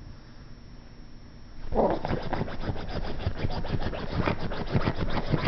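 Japanese Chin puppy digging frantically at couch fabric with its front paws: a fast, continuous run of scratching strokes that starts about a second and a half in.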